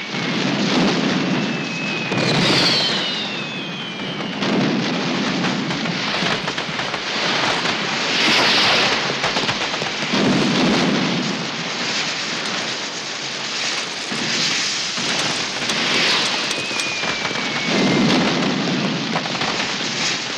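Fireworks going off in a dense, continuous barrage of crackles and bangs that swells and fades every couple of seconds, with a few whistles sliding down in pitch.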